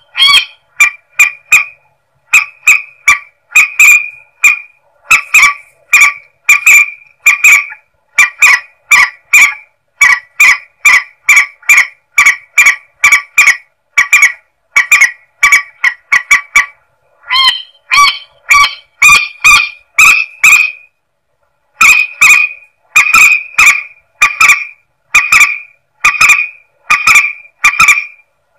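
Lure-call recording of the mandar sawah, a paddy-field rail, calling: a long series of short, honking notes repeated about two to three a second, broken by brief pauses into phrases.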